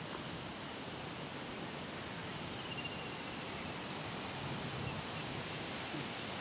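Steady outdoor background hiss on an open hilltop, with a few faint, short high bird chirps in the distance.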